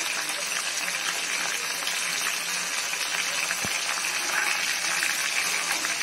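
Rava-coated prawns deep-frying in hot oil: a steady sizzle with fine crackling, and one soft knock about three and a half seconds in.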